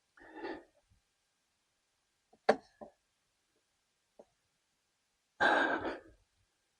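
A man's short breath, then a long frustrated sigh near the end, as he strains to seat a hose connector by hand. About two and a half seconds in there is a sharp click from the parts he is handling, with a fainter click just after.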